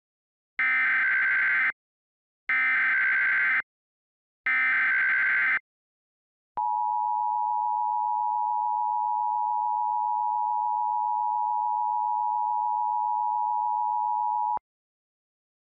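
Emergency Alert System header opening a tornado warning: three short bursts of screeching digital data, about a second each, then the steady two-tone EAS attention signal held for about eight seconds, which cuts off abruptly.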